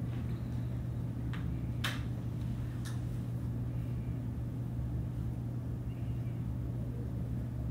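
A steady low hum, with a few brief clicks in the first three seconds.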